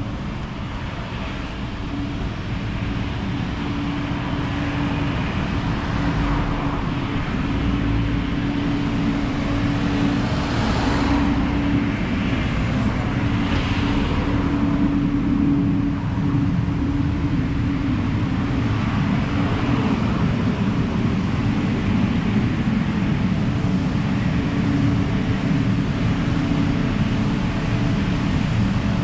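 Road traffic: a steady low engine rumble with a constant hum, growing louder over the first few seconds, and two vehicles passing one after the other about a third of the way in.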